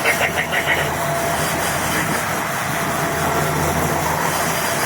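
Fishing boat's engine running steadily under a constant hiss of wind and water.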